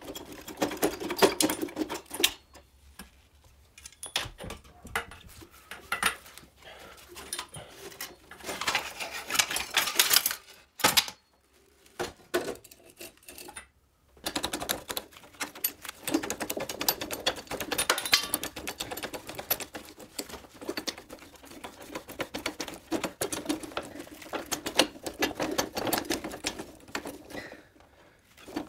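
Rapid metallic clicking and clattering of hand tools and steel parts while the handlebar, speedometer and front fork of a Riga 12 moped are unbolted. It comes in bursts: a short one at the start, another about eight seconds in, and a long steady run from about fourteen seconds in.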